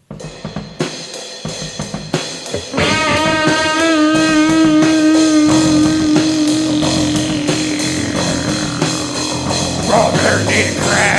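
Loud hardcore punk rock music: drums start at once, and about three seconds in the full band comes in with a distorted guitar holding one long note for a few seconds over the drums.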